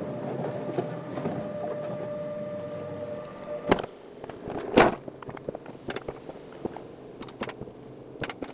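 Alpine coaster sled rolling on its steel tube rails with a steady humming whine. Two loud clunks come about halfway through. After them the running noise falls away to a quieter rattle with scattered clicks.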